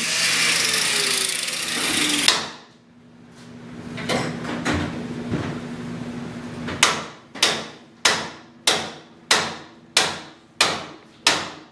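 An angle grinder cutting metal, stopping abruptly about two seconds in. After a few scattered knocks, a hammer strikes about eight times, a little over half a second apart.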